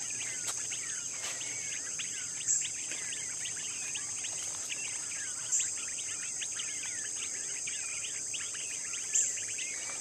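A flock of young quail peeping, many short high chirps overlapping, over a steady high-pitched drone of night insects.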